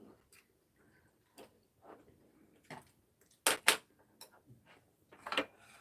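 Eating at a table: spoon and chopsticks clicking against ceramic bowls, with light chewing. The loudest are two sharp clicks in quick succession about three and a half seconds in, and a short cluster of clicks near the end.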